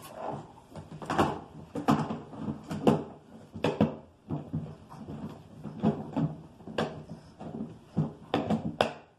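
Irregular knocks, bumps and rustling as things are handled in and around a cardboard shipping box, roughly one or two knocks a second.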